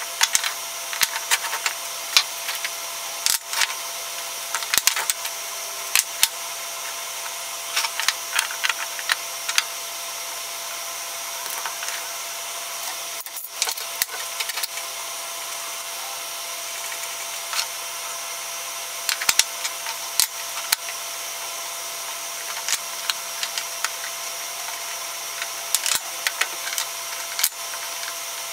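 Wooden boards and hand tools being handled on a workbench: scattered sharp clacks and taps of wood and metal knocked and set down, over a steady background hiss.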